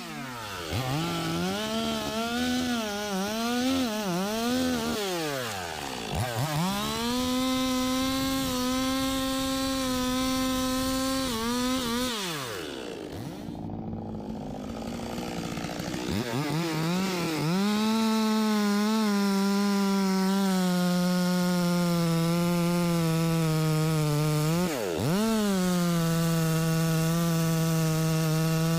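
Two-stroke chainsaw revving up and down several times, easing off for a few seconds near the middle, then running at steady high throttle, cutting into teak wood.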